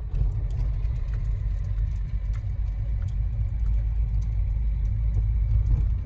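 Car heard from inside the cabin while driving: a steady low rumble of engine and road noise, with light clicks over it.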